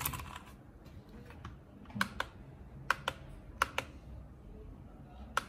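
Blue-switch mechanical keyboard keys clicking. A quick run of keystrokes comes at the start, then single clicks and pairs spaced out with quiet gaps between them.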